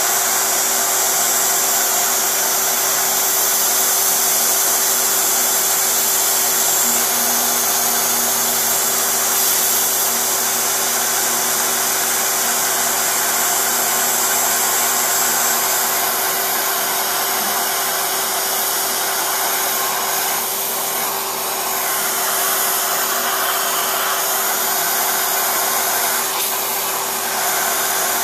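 Small CNC router's spindle motor running steadily, its end mill cutting a clear plastic block. The cutting noise changes briefly about twenty seconds in and again near the end.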